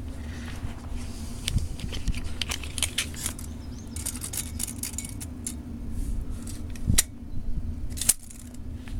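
Scattered sharp clicks and short light rattles of small objects being handled, over a steady low hum.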